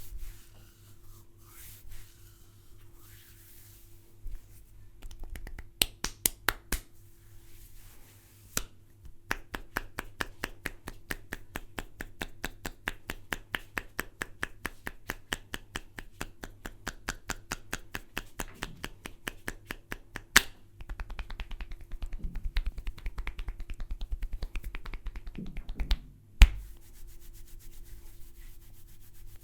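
Barber's hands snapping during an Indian head massage: a few scattered sharp snaps, then a rapid, even run of snaps at about five a second for around ten seconds. Rubbing and handling noise follows, then one loud crack near the end.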